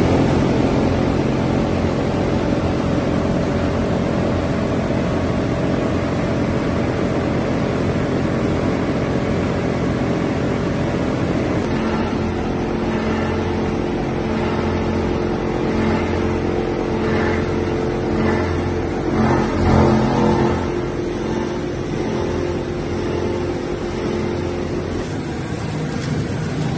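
Plastic-film washing and recycling line running under load: electric motors and the belt conveyor hum steadily while the film crusher chops waste LDPE film and PP bags. From about halfway there are irregular louder surges as film is fed through.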